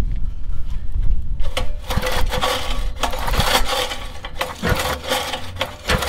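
Recoil starter pulled repeatedly, cranking the tiller's single-cylinder engine over without it starting, a rasping whir with a sharp stroke at each pull; a test spark plug is held against the head to check for spark.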